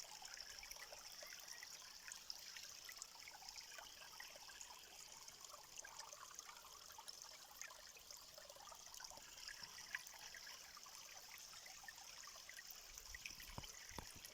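Faint trickling water, a steady light hiss dotted with many small drips and splashes.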